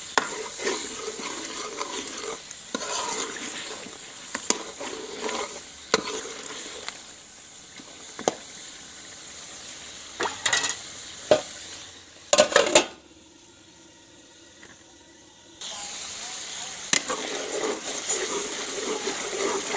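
Chicken masala sizzling in a steel pot while a metal spoon stirs it, clicking and scraping against the pot. A quick run of louder knocks comes about twelve seconds in, followed by a few quieter seconds before the stirring and sizzling pick up again.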